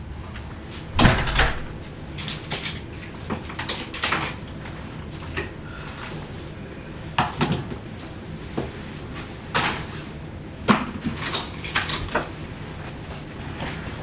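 Handling sounds of a person taking off a coat by a door: a heavy thump about a second in, then scattered knocks, clicks and rustling of the coat and bags, over a low steady hum.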